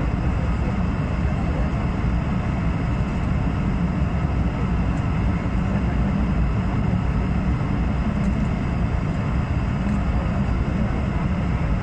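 Steady airliner cabin noise during the descent to land: engine and airflow drone heard through the cabin, deep and even, with no change throughout.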